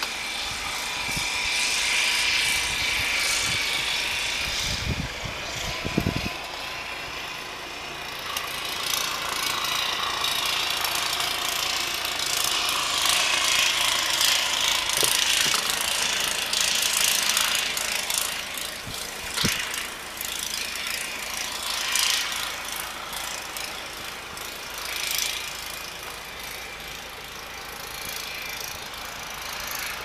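Snowblower engine running at a distance, its level rising and falling as it works, with a couple of dull thumps about five and six seconds in.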